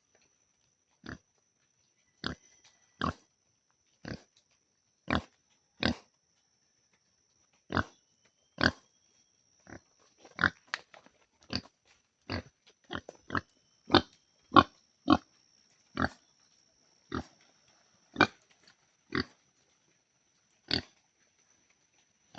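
Pig grunting in short, separate grunts, roughly one a second at an uneven pace.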